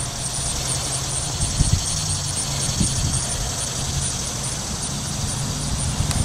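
Wind buffeting the microphone in gusts, over a steady low hum and a faint, fast, high-pitched pulsing.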